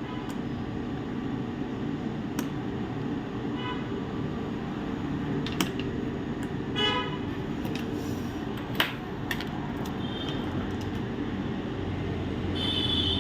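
Sharp clicks and taps of a laptop being opened up to remove its CMOS battery, over a steady low background hum, with a few brief high-pitched toots about four and seven seconds in and near the end.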